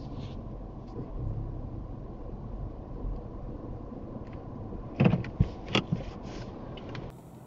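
Low, steady rumble of a car creeping forward and coming to a stop, heard from inside the cabin. About five seconds in comes a quick cluster of sharp clicks and knocks inside the car.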